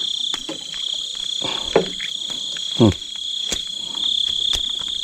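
Steady high-pitched chorus of crickets and other night insects. Over it come a few light clicks and knocks, and a short falling grunt a little under three seconds in.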